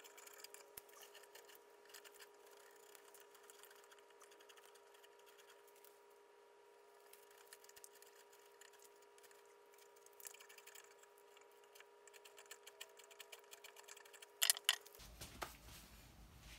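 Hand carving gouge chipping and scraping bark off the live edge of a walnut slab: faint, rapid, dense clicking and scraping over a steady hum, with a couple of louder sharp knocks near the end.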